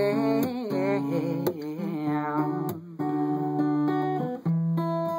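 Steel-string acoustic guitar strummed in chords, with a sung "yeah" drawn out and wavering over the first two seconds, then the guitar alone with crisp strokes.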